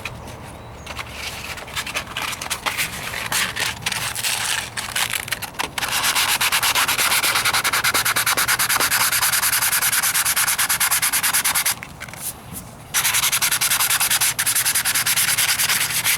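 Sandpaper rubbed by hand over body filler on a truck's wheel arch in rapid back-and-forth strokes, smoothing the patch. The strokes are lighter and uneven at first, then steady and faster after about six seconds, stopping for about a second near the twelve-second mark before going on.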